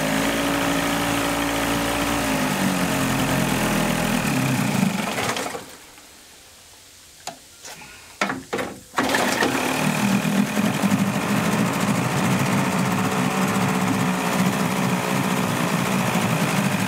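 Evinrude 35 hp two-cylinder two-stroke outboard running on a test stand after sitting for a while; it slows and stalls about five seconds in. After a few clicks it starts again about nine seconds in and runs steadily.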